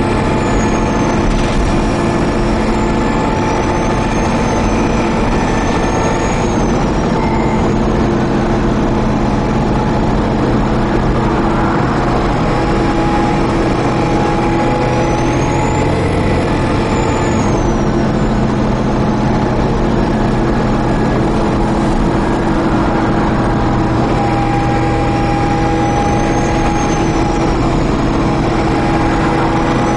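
Dennis Trident 2 double-decker bus running under way, heard from on board: a steady engine and drivetrain drone with a thin high whine that rises and falls several times.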